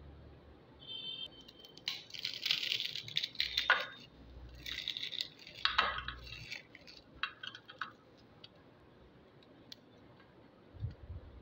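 Crisp fried thattu vadai (rice-flour crackers) being broken and crumbled by hand, crackling and crunching. There are two main spells, starting about two seconds in and again about halfway, then a few scattered crackles.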